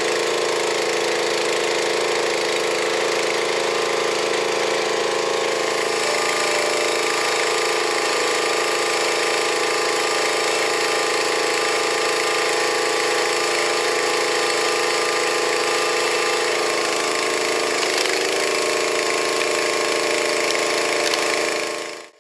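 Honda GX160 single-cylinder four-stroke engine on a Timberwolf TW-P1 log splitter, running at a steady speed to drive the hydraulic pump. The sound fades out near the end.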